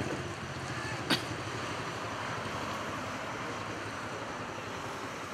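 Steady hum of street traffic with a single sharp click about a second in.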